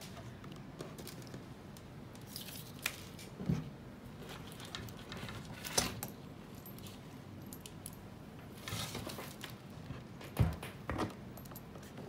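Scattered small clicks and short rustles from handling a fiber optic patch cord and its metal FC connector at the ports of a handheld OTDR, with a couple of sharper knocks near the end.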